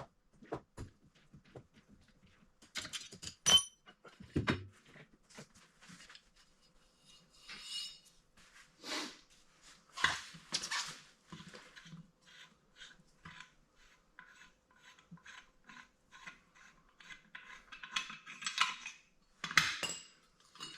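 Hand tools and metal parts clinking and knocking while the clutch cover is unbolted from a Polaris Ranger UTV, with a run of evenly spaced clicks in the middle.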